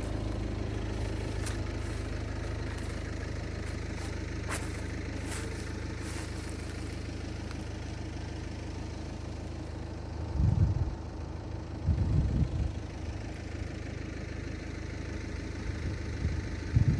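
A motor vehicle's engine running steadily with a low hum, with a few brief low rumbles about ten and twelve seconds in.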